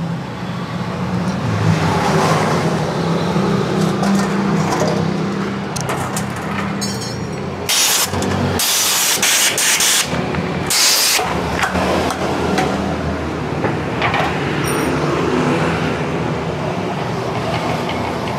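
A motor vehicle engine running steadily, with three short, loud bursts of hiss about eight to eleven seconds in.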